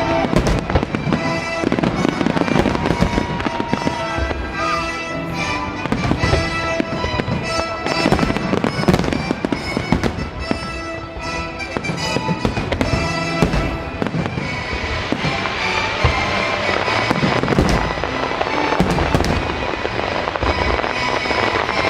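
Fireworks bursting in quick, dense succession in a grand finale, with music playing alongside.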